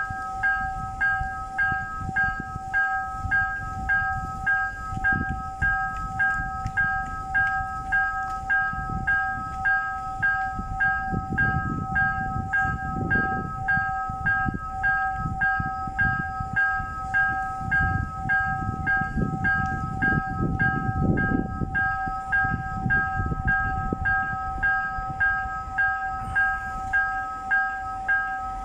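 Electronic warning tone pulsing steadily about one and a half times a second over a held two-note drone, with a low rumble underneath that swells twice.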